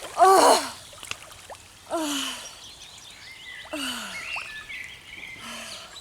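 A man's wordless contented sighs: four short 'ahh' sounds, each falling in pitch, the first the loudest. Small birds chirp faintly behind them.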